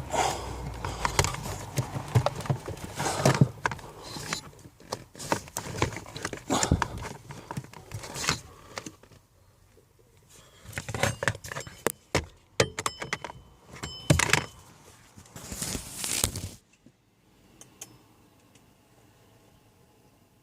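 Irregular clicks, knocks and light metallic clatter of tools and small parts being handled, with a short jingling ring about twelve seconds in; the clatter stops suddenly about sixteen and a half seconds in, leaving a faint steady background.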